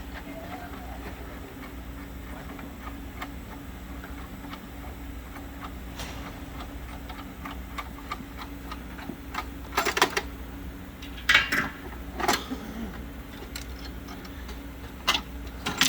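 Scattered clicks and knocks of a Christie cinema projector's lamp module being unlatched, pulled out and handled, loudest in a few clusters in the second half, over a steady low hum.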